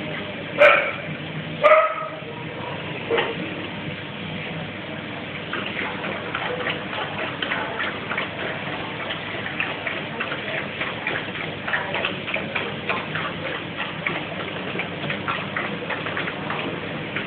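Dogs eating dry kibble from stainless steel bowls: rapid crunching and clinking that thickens from about five seconds in. Near the start come two loud, sharp sounds about a second apart, then a smaller one.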